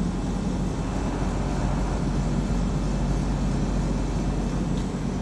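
Outdoor unit of a 96,000 BTU inverter heat pump running steadily in normal operation, with the variable-speed compressor wound up to speed and the condenser fan turning: a steady low hum under an even rush of noise.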